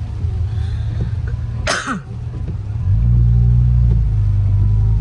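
Car cabin noise while driving: a steady low engine and road rumble that grows louder about three seconds in. A single short cough comes just under two seconds in.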